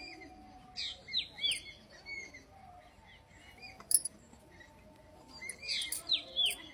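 Birds chirping in repeated short calls, in clusters about a second in and again near the end, with a single sharp click about four seconds in.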